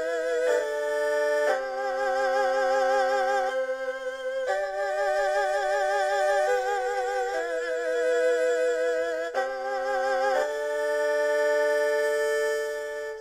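Asian-style music played on software instruments: held chords of flute- or voice-like tones with vibrato, moving to a new chord every one to two seconds.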